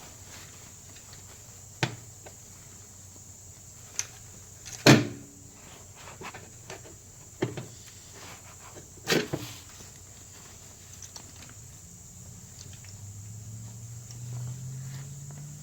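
Several sharp knocks and clicks at uneven intervals, the loudest about five seconds in. A low hum creeps in near the end.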